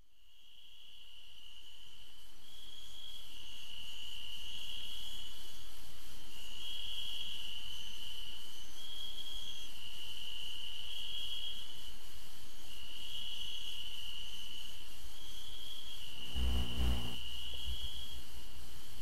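Crickets chirring in long high trills that overlap and stop and start, fading in from silence over the first few seconds. A brief low thump sounds once, near the end.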